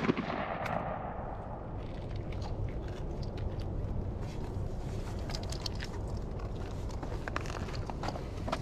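Shotgun blast dying away in a rolling echo over about a second and a half. Then quiet open-air ambience with a few faint clicks.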